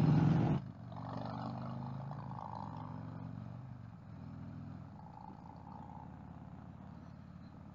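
Harley-Davidson V-twin motorcycle engine running steadily at cruising speed, louder for the first half second, then a faint low hum that slowly fades.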